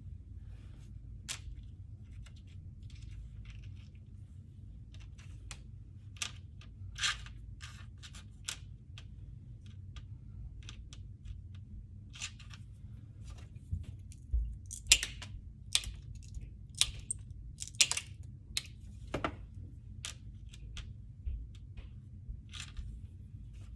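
Irregular sharp clicks and light clinks of a hand cutting tool snipping and small hard pieces being handled, heavier from about twelve seconds in, over a low steady hum.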